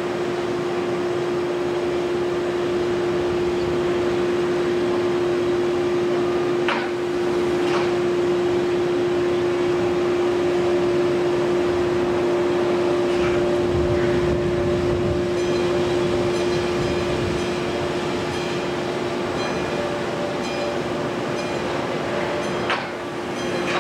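Demolition excavators' diesel engines and hydraulics running steadily, with a constant droning whine. Two sharp knocks stand out, one about seven seconds in and one near the end.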